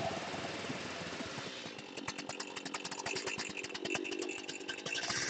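Gas chainsaw carving into a wooden plank, running at speed with the bar in the wood at first, then dropping to a lower throttle about two seconds in, where its separate engine beats can be heard.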